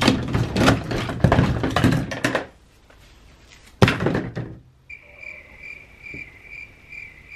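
Plastic toy figures clattering and knocking as they are toppled into a heap, with one louder thud about four seconds in. From about five seconds in, a steady high-pitched chirp pulses a few times a second.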